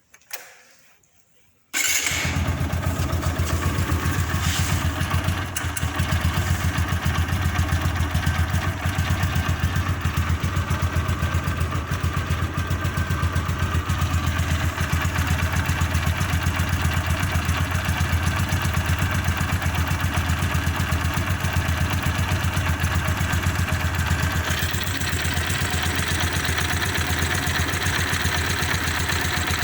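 TVS Apache 160 motorcycle's single-cylinder four-stroke engine starting abruptly about two seconds in, then running steadily at idle with an even, pulsing beat.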